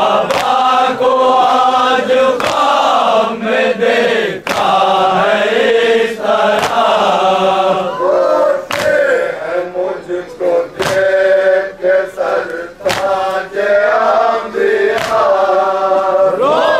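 Crowd of men chanting a nauha, a Shia mourning dirge, together while beating their chests with open hands (matam). A sharp slap from the strikes comes about every two seconds.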